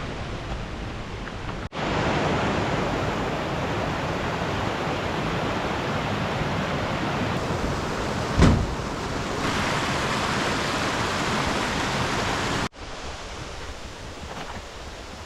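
Steady rushing of fast-flowing water, as from a mountain stream or small waterfall, starting and stopping abruptly at edit cuts, with one short thump about eight and a half seconds in.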